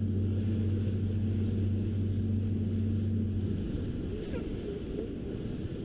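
Motorboat engine running under way, a steady low hum with wind and water rush over the hull. The hum drops away about three and a half seconds in, leaving the rushing noise.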